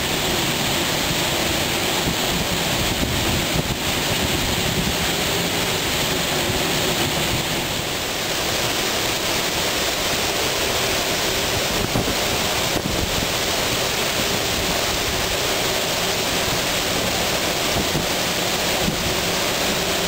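Tropical-storm wind blowing hard through palm trees, with rain and wind buffeting the microphone: a steady, loud rushing noise with no letup.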